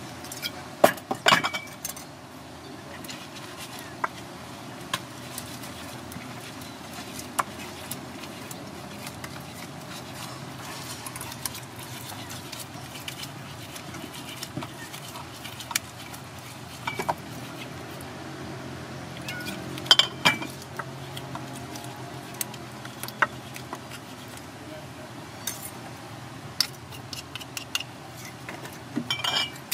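A metal fork clinking and scraping against a ceramic plate as ground peanut sauce is mixed with water, in scattered sharp clinks, loudest about a second in and again around twenty seconds in.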